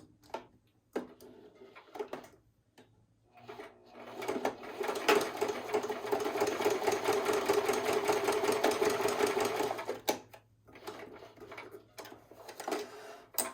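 Singer sewing machine stitching at a fast, even rate. It starts about four seconds in and stops at about ten seconds, with a few light clicks before and after.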